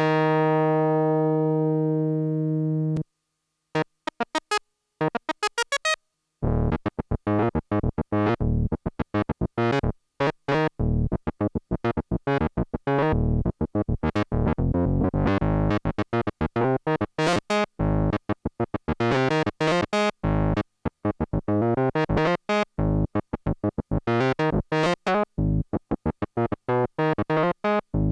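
Behringer Odyssey analog synthesizer playing: a held note with a full set of overtones that cuts off suddenly about three seconds in, a few short notes, then a fast run of short staccato notes, many per second, whose brightness rises and falls.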